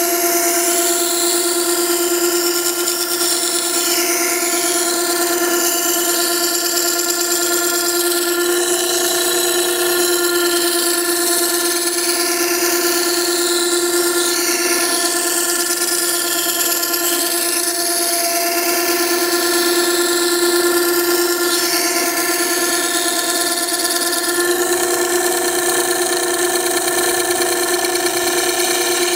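Makita 9820 electric water-stone sharpener running steadily with a steady motor hum, its coarse 120-grit wheel grinding a steel plane iron held in a jig, with a hiss of steel on the wet stone. This is rough grinding to re-establish a 25-degree bevel that had drifted far off.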